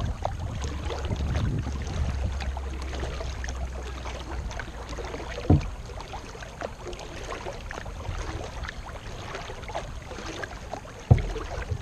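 Kayak being paddled: small water splashes and drips from the paddle strokes, with wind rumbling on the microphone for the first few seconds. Two sharp knocks, one about halfway through and one near the end.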